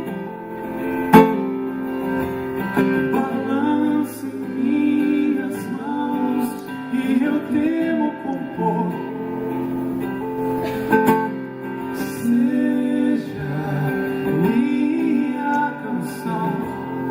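Music: a song led by acoustic guitar, with a gliding melody line over it and a sharp percussive hit about a second in and again near eleven seconds.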